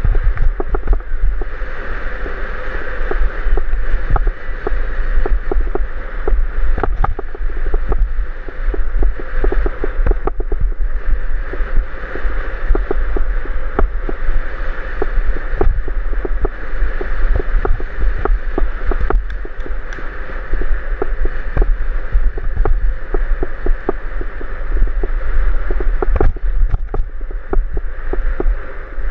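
Wind rumbling on a helmet camera's microphone as a bicycle rides a bumpy dirt trail, with frequent small rattles and knocks from the bike and camera mount jolting over the bumps.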